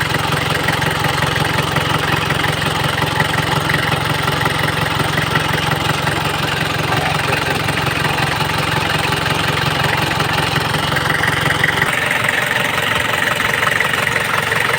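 Isuzu Trooper's turbodiesel engine idling steadily. About twelve seconds in, its low rumble thins out and the sound turns brighter.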